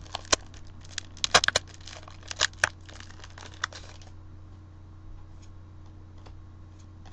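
Foil trading-card booster pack wrapper crinkling and tearing open, a run of sharp crackles over the first four seconds or so, then only a few faint ticks of card handling.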